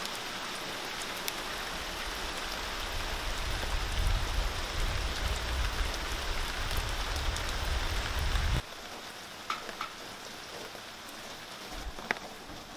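Steady rain falling on a deck and potted plants, with a low rumble under it through the middle. About eight and a half seconds in it cuts suddenly to a quieter patter of single drops ticking on leaves.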